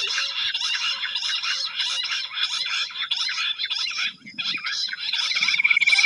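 Jungle bush quail calling: a dense, harsh chattering chorus that repeats about two to three times a second, with a short break just after four seconds. About five seconds in, a steady high trill joins and carries on.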